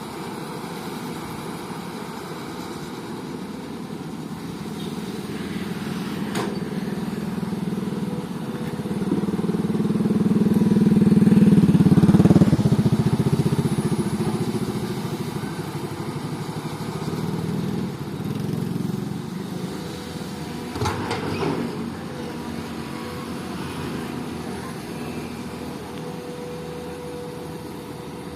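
Diesel engine of a Komatsu PC200 hydraulic excavator running, swelling louder about ten to twelve seconds in and then easing back. Two sharp knocks sound over it.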